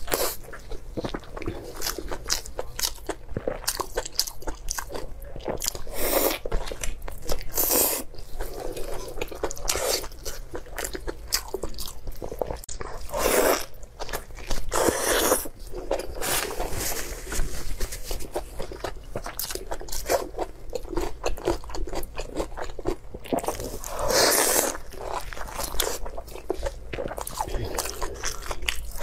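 A person biting and chewing sauce-coated braised pork: a steady run of smacking mouth clicks, with several louder, longer bites spaced through.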